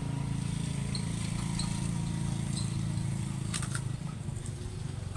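A vehicle engine running steadily with a low hum, fading about four seconds in. A brief cluster of clicks sounds just before it fades.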